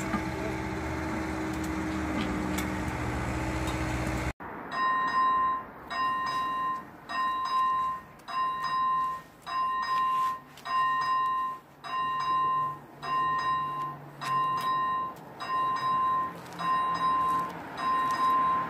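A steady engine drone cuts off abruptly about four seconds in. It is followed by a level-crossing electronic warning bell: a clear ringing tone repeated about once a second, signalling that a train is approaching.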